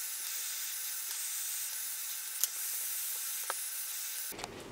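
Hot-air heat gun blowing a steady hiss of air onto heat-shrink butt splices on a red wire, shrinking them. Two faint clicks come partway through, and the hiss stops shortly before the end.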